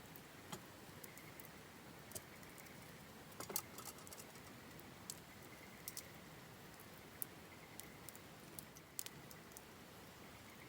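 Campfire burning quietly: wood crackling in sparse, irregular sharp pops over a faint steady hiss, with a small burst of pops about three and a half seconds in.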